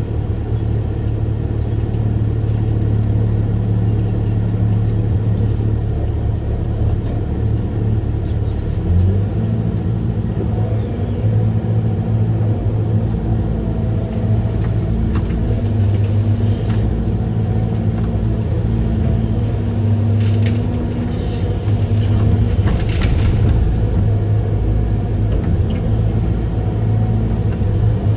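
Amphibious excavator's diesel engine running steadily under load, its pitch stepping up about nine seconds in. A few short clicks and rustles come about two-thirds of the way through.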